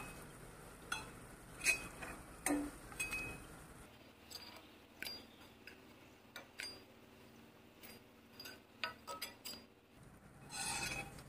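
Steel slotted spatula clinking and tapping against a frying pan while fried soy tikkis are lifted out of the oil: scattered light clinks, with several in quick succession near the end.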